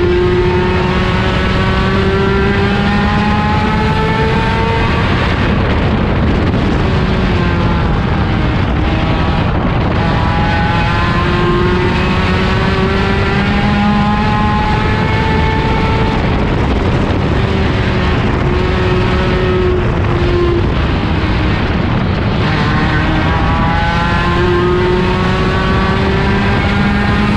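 Dirt-track race car's engine heard from inside the cockpit at speed. It revs up for several seconds and then drops in pitch as the throttle eases, a cycle that repeats about every ten seconds, nearly three times.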